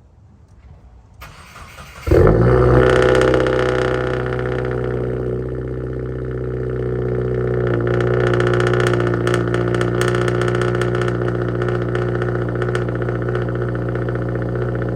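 Subaru WRX turbocharged flat-four engine cold-starting. A brief crank about a second in, then it catches sharply about two seconds in with a flare and settles into a fast, steady cold idle.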